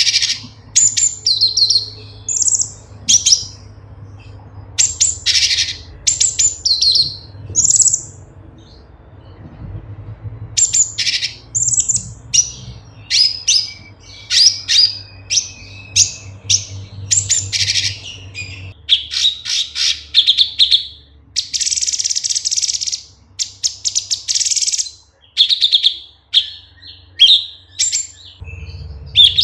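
Orange-bellied leafbird (cucak cungkok) singing a rapid, varied stream of short chirps and whistles, with some harsher, scratchy phrases past the middle.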